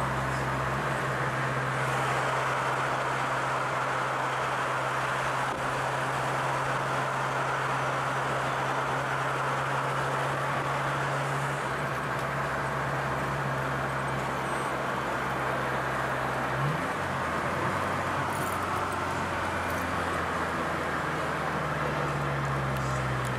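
Car driving on a paved road, heard from inside the cabin: a steady engine hum under tyre and road noise. About two-thirds of the way through, the engine note shifts abruptly to a new pitch.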